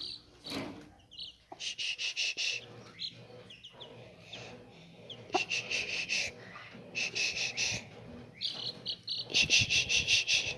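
Baby chicks peeping: quick runs of high, shrill peeps in several bursts with short pauses between, the longest near the end. A faint low hum runs underneath from about a third of the way in.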